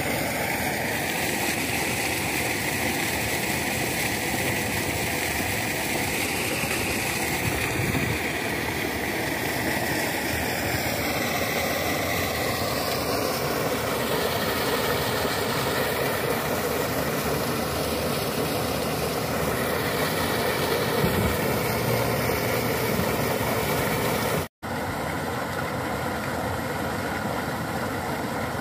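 Sand-and-water slurry gushing from a sand-pump discharge pipe and splashing into a flooded plot: a steady rushing noise that breaks off for a moment about three-quarters of the way through.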